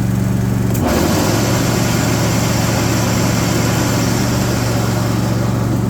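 John Deere S130 riding mower's engine running steadily; about a second in, a click as the mower deck engages, the engine note dips under the load, and the spinning blades add a loud, rough whir. The deck noise is the sign of worn spindle bearings with play in them.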